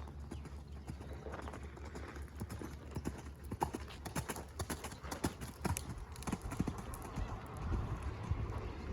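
Horse's hoofbeats: a run of rhythmic hoof strikes, thickest in the middle, over a steady low rumble.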